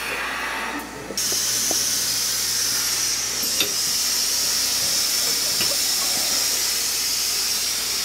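Compressed air rushing through the air pressure hose into the piping for a clearing shot: a loud, steady hiss that jumps much louder about a second in.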